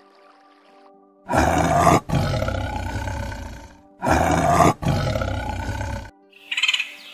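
A big cat roaring twice, each roar loud and about two seconds long, fading out at the end, over soft background music. A short bird chirp comes near the end.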